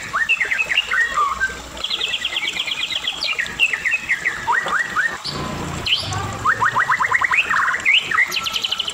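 White-rumped shama (murai batu) singing a long, varied song. Rapid trills of repeated high notes alternate with sharp rising and falling whistles.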